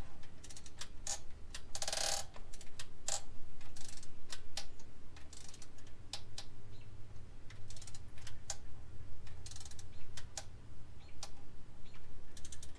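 Ratchet pawl of a torque wrench clicking in several short, rapid runs as the handle is swung back, with single clicks and taps of the tool between them, while coil-pack bolts are tightened to 8.7 ft-lb. A low steady hum lies underneath.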